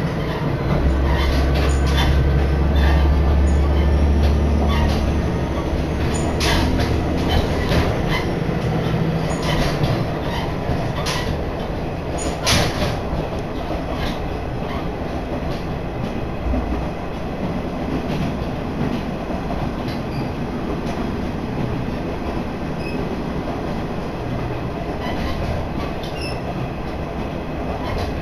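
Train running along the track, heard from inside the passenger car: a steady rumble of wheels on rail, with a deep hum in the first several seconds that fades away. A few sharp clicks come between about six and thirteen seconds in.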